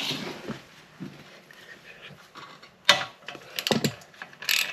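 Metal hand tools clicking and clinking against bolts and the motorcycle's exhaust hardware, with a sharp clink about three seconds in and a quick run of clicks and a scrape near the end.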